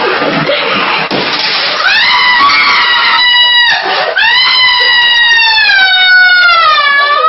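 Shower water hissing, then a person screaming in fright: a high-pitched scream about two seconds in, a brief break, and a second, longer scream that falls in pitch near the end.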